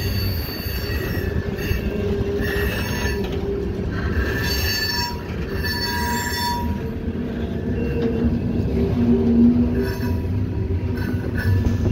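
Freight cars rolling slowly past, their steel wheels squealing on the rails in intermittent high-pitched screeches over a steady low rumble. The squeal comes and goes, heaviest in the first half.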